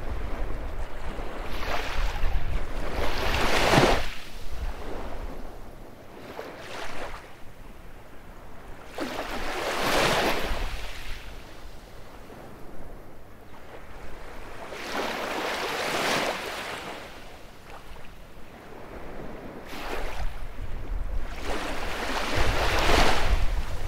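Baltic Sea surf washing onto a beach: waves break in four swells about six seconds apart, each rising and falling away. Wind buffets the microphone with a low rumble at the start and near the end.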